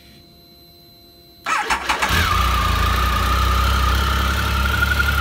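2008 Triumph Tiger's three-cylinder engine started on the electric starter about a second and a half in. It catches almost at once and settles into a steady idle.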